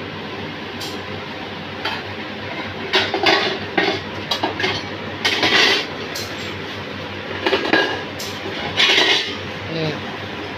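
Hollow silver ritual pieces (conch, chakra and rods) being handled, clinking and scraping against each other in several short bursts over a steady background hum.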